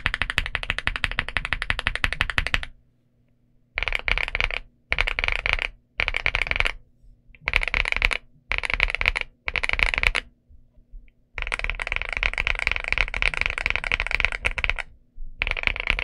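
Typing on a Leobog Hi75 mechanical keyboard with Nimbus linear switches and MDA-profile PBT keycaps. A fast run of keystrokes stops after about two and a half seconds, followed by six short bursts of rapid keypresses with brief pauses between them, then a steady run of typing again with a short break near the end.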